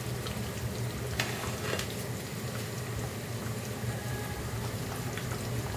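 Thick chicken curry gravy bubbling in an open pan, with a steady low hum underneath. A ladle stirs it, giving a couple of faint clicks.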